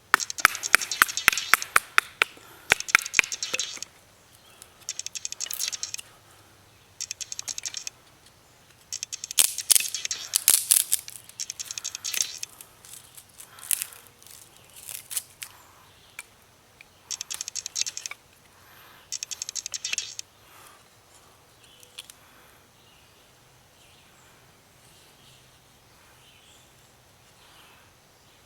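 A knife blade scraping and shaving wood in about seven separate bursts of quick, crackly strokes. The bursts stop about two-thirds of the way through, leaving faint outdoor background.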